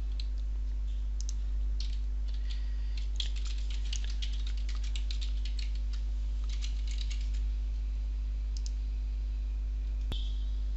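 Computer keyboard typing in short runs of keystrokes, about three to five seconds in and again around seven seconds, as a username and password are entered. A single sharp click comes near the end, over a steady low hum.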